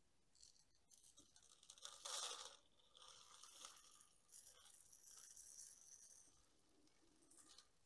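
Faint crunching and scraping of potting soil and roots as a small dwarf jade (portulacaria afra) is worked loose from its pot, with soil crumbling onto a plastic lid. It comes in short crackly spells, the loudest about two seconds in.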